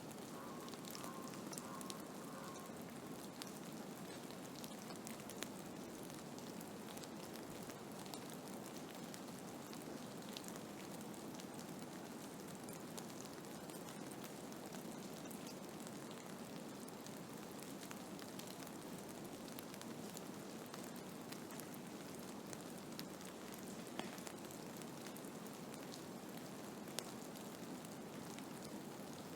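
Blizzard sound: a steady hiss with scattered faint ticks, as of snow or ice pellets striking a surface.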